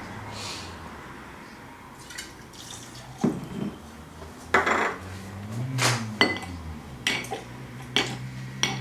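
Stainless steel bar tools knocking and clinking against glassware as a drink is made: a quieter start, then a run of sharp clinks and knocks roughly once a second from about three seconds in.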